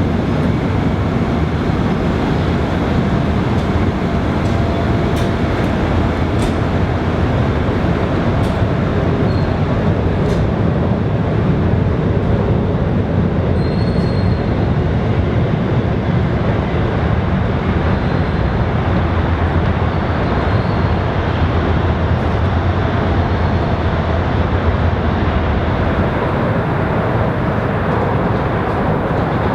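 Amtrak passenger train under way, hauled by a diesel locomotive, heard from on board: a steady heavy rumble of engine and wheels on rail, with a few faint clicks and brief faint high squeals.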